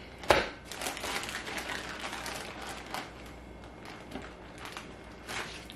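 Plastic zip-top bag rustling and crinkling as raw chicken breasts are pulled out of it and handled with gloved hands, with one sharp knock just after the start.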